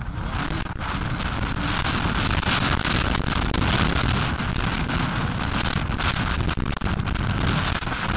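Heavy wind buffeting on an onboard camera microphone, over the Suzuki RM250 two-stroke motocross bike's engine running hard under way. The level rises about a second in and stays loud.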